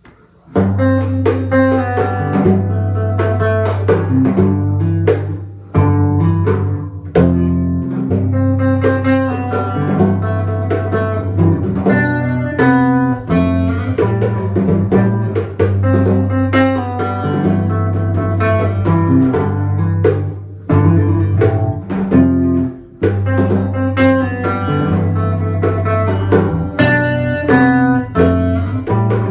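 Instrumental band music with plucked guitar, a bass holding low notes and a drum kit, starting about half a second in.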